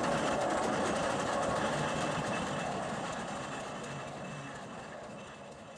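Restored steam road engine running and driving off on its first test run: a steady, rapid mechanical clatter that grows steadily fainter as it pulls away.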